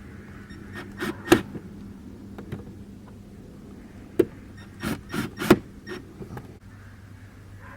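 Several short knocks and clicks of hand work on a car, over a steady low hum: two a little after a second in, and a quick cluster around four to five and a half seconds in.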